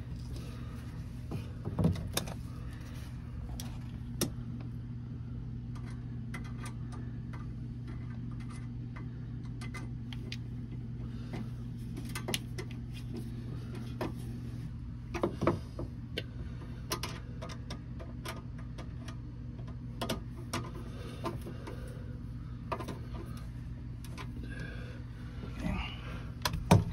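Small metal clicks and knocks of a screwdriver working a stainless hose clamp onto a rubber bilge pump hose, irregular and scattered, with a couple of louder knocks about 2 seconds in and again halfway through. A steady low hum runs underneath.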